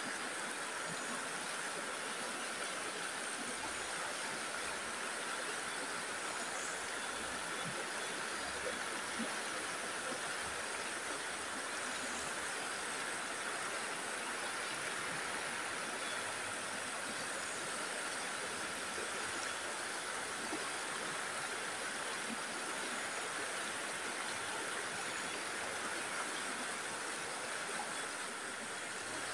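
Shallow stream running over rocks: a steady rushing of water.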